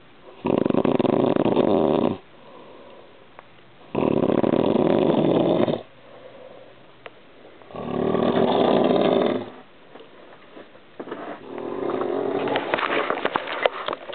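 A man snoring loudly in his sleep: three long, rough snores of about two seconds each, spaced three to four seconds apart, with quiet breathing between them. Near the end a softer, irregular sound with clicks builds up.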